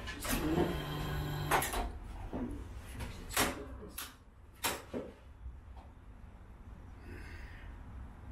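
Chiropractic adjusting table having its padded sections set: a scraping, rattling movement in the first two seconds, then three sharp clacks in quick succession.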